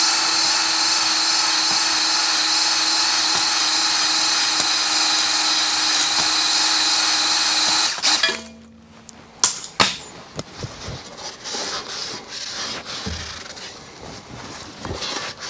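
Cordless drill spinning a cylinder hone at constant full speed with a steady whine, honing rust pitting out of a cylinder of a seized small-block Chevrolet engine. It stops abruptly about halfway through, followed by a few clicks and knocks as the tool is handled.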